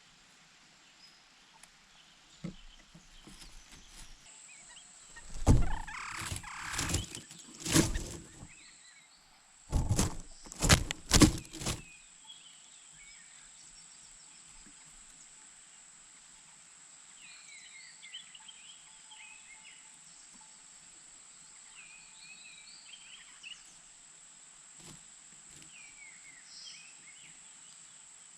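Two short clusters of loud thumps and rustles, then faint, high, short bird chirps coming and going.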